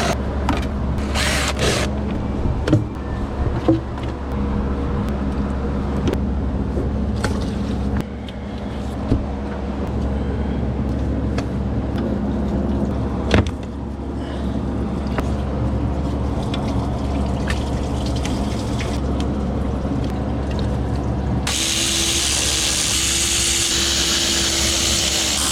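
Scattered clicks and knocks of hand tools on metal over a steady low hum. About 21 seconds in, a loud steady hiss with a steady tone starts and runs on.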